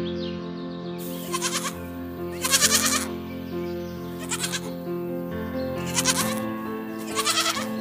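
A goat bleating five times in short, separate calls over steady background music.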